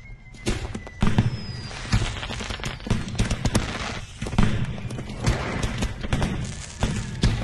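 Fireworks going off: a rapid, irregular series of booms and bangs with crackling, starting about half a second in.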